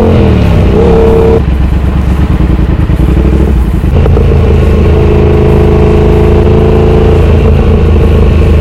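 Loud exhaust of a twin-cylinder motorcycle that is cat-deleted and has no baffle. The revs drop at the start, the note runs rough and uneven for a couple of seconds, then it settles into a steady pull that rises slowly.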